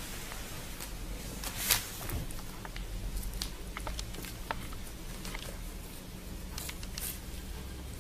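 Small clear plastic bag holding a spare trouser button being pawed and bitten by a cat: scattered faint crinkles and ticks of plastic, with one louder crackle a little under two seconds in.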